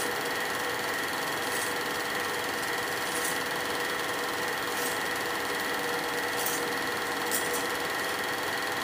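Film projector running: a steady mechanical whir with a constant hum, and a faint tick about every second and a half.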